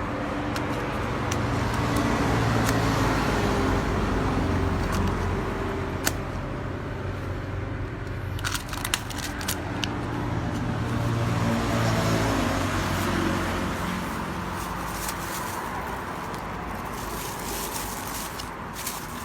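Low engine hum that swells and fades twice, with a few scattered light clicks.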